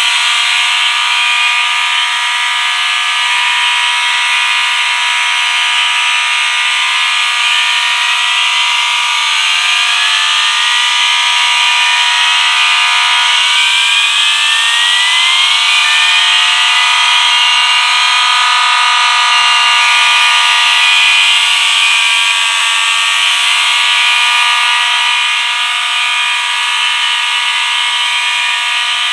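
A collection of fire alarm sounders, about eighteen of them, all going off at once: a loud, continuous wall of overlapping alarm tones, with rising sweep tones repeating through it.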